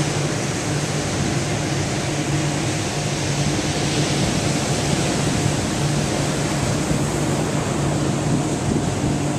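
Steady rush of ocean surf breaking on a sandy beach, with a constant low mechanical hum running underneath.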